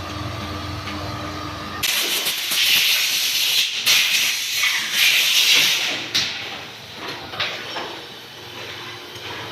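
A motorcycle engine hums at idle, then stops abruptly about two seconds in. A loud, steady spraying hiss from a pressurised jet follows for about four seconds, breaking off briefly twice before fading away.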